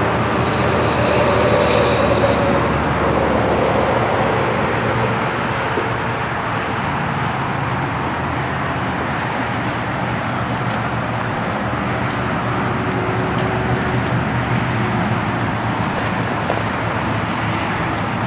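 Steady outdoor ambience: a broad, even rushing noise, a little louder in the first few seconds, with insects chirping high-pitched a few times a second over it.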